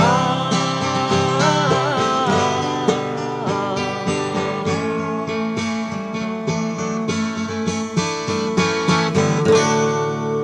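Instrumental break of a song on guitars: a steady run of picked notes, with a lead line that bends and wavers in pitch in the first few seconds.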